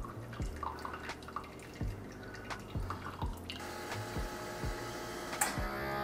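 Keurig K-Classic single-serve brewer dispensing coffee into a mug: liquid dripping and splashing over a rhythmic pulsing about twice a second. A few seconds in, as the flow stops, a steady hiss and hum set in, which is the end of the brew cycle.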